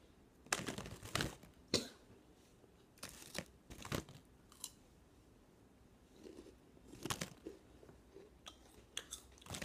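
Hot Cheetos crunching as they are bitten and chewed close to the microphone: sharp crackly crunches in clusters, about a second in, around three to four seconds in, and again near seven and nine seconds.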